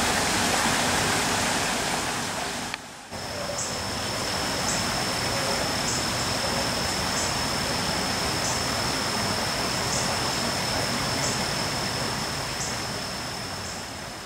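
Steady rushing of running water, like a woodland stream. A brief drop comes about three seconds in, after which a thin, steady high whine joins it, with faint ticks about once a second.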